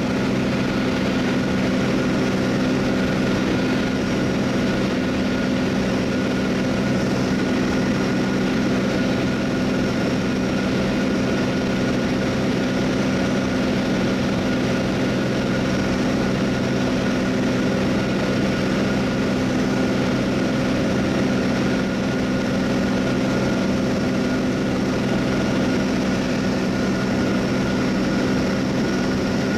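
Steady drone of an aircraft's engine heard on board, unbroken and even, with several steady tones over a wide rushing noise.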